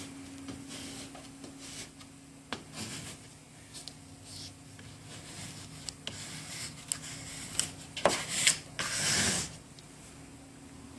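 Plastic squeegee rubbing over vinyl lettering and its transfer tape in short strokes, pressing the graphic down onto the surface. There are a few light clicks, and the loudest, longest rasping strokes come near the end.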